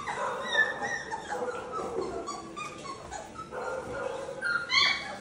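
Four-week-old Labrador Retriever puppies whining and yipping in a string of short, high calls, with one louder bark near the end.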